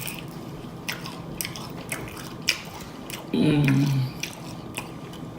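Close-up mouth sounds of someone eating: wet smacking clicks while chewing fried butterfly shrimp, with a short low vocal sound from the eater about three and a half seconds in.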